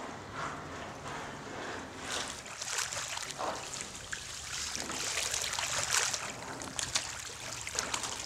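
Boots sloshing through shallow water on a concrete storm-drain floor: an uneven run of footstep splashes, louder after about five seconds in.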